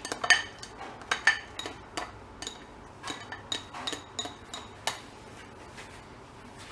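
Slotted spatula tapping and scraping against a ceramic bowl as chopped onion and garlic are knocked out of it into a frying pan. It makes a quick, uneven run of clinks with a light ring, which stop about five seconds in.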